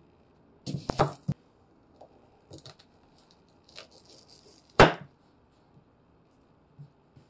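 Kitchen knife slicing through a peeled onion and knocking on a wooden cutting board: a quick cluster of cuts about a second in, lighter crisp cuts after, then one sharp, loud knock of the blade on the board.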